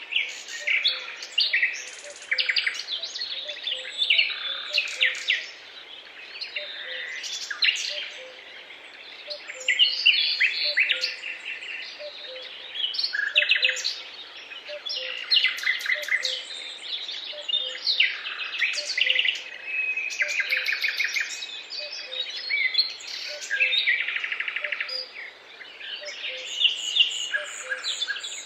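Several songbirds singing at once, a dense, continuous mix of chirps, trills and warbles, with a faint low note repeating steadily underneath.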